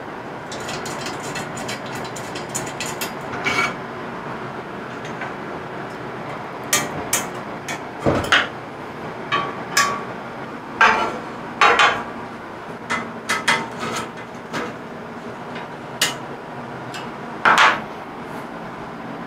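Clinks, clacks and knocks of aluminium extrusion rails, bolts and a T-handle Allen key being handled and fitted together while a CNC machine's base frame is assembled. The knocks come at irregular intervals, the loudest a little past the middle and near the end.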